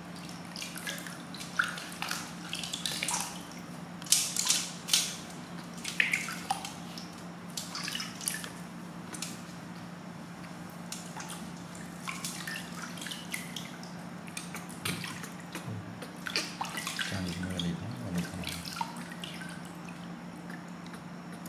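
Water splashing and dripping in a stainless steel basin as a hand scoops and pours water over a newborn baby monkey, in many short irregular splashes. A few brief high squeaks from the baby monkey come in between.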